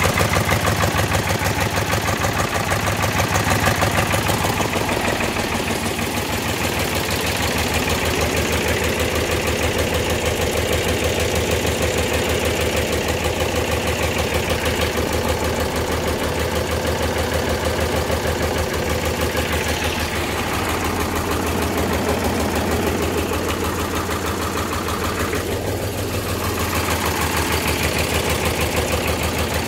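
Old Ford 3000 tractor's three-cylinder engine idling steadily with an even beat.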